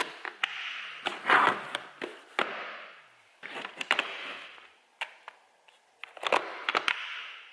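Hard plastic tool carrying case being handled: its lid is pressed down, opened and shut, with several sharp plastic clicks and knocks and rustling as the paper manual and coiled cables are packed inside.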